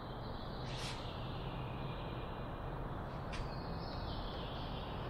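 Steady low hum of workshop background noise, with two brief, faint high-pitched hisses about a second and three seconds in.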